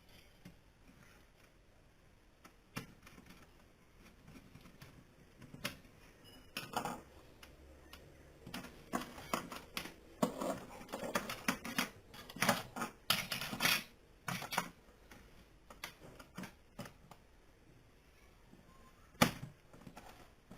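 Irregular clicks, taps and rattles of small hard objects being handled. They come sparsely at first, densest in the middle, with one sharp click near the end.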